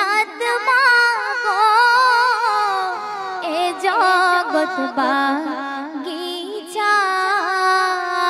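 A woman singing a Bengali gojol (Islamic devotional song) into a handheld microphone, drawing out long ornamented notes that waver and glide, with brief breaks between phrases.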